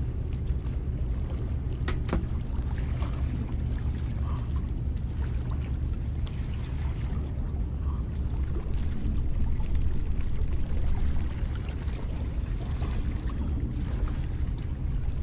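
Steady low rumble of wind and sea water at the shoreline on the microphone, with a sharp click about two seconds in.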